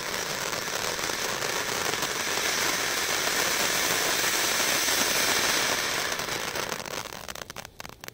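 Ground fountain firework spraying sparks with a steady hissing crackle that swells slightly midway, then dies away with a few sputtering crackles near the end as it burns out.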